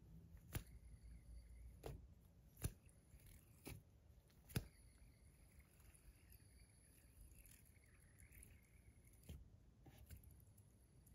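Near silence broken by about seven faint, sharp clicks and taps from a metal fidget spinner being handled in the fingers. Most of the clicks come in the first five seconds, the loudest about four and a half seconds in.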